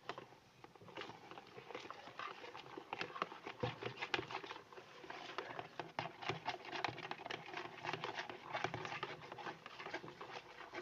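A spoon stirring a runny mix of clear glue and borax water in a container: a quick, irregular run of clicks and scrapes of the spoon against the container. The mix is still watery and has not yet thickened into slime.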